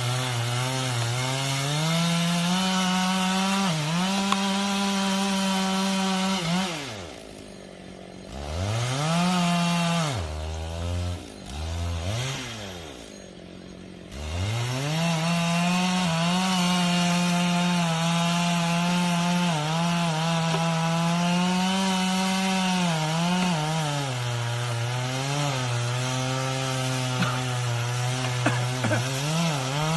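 Two-stroke chainsaw cutting through a large tree trunk at full throttle, its pitch wavering under load. Twice, about a quarter of the way in and again near the middle, it drops briefly to idle and then revs back up into the cut.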